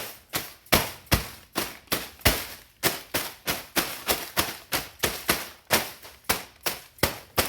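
A small rubber mallet striking a block of dry ice again and again to break it into pieces: a steady run of sharp blows, about three a second.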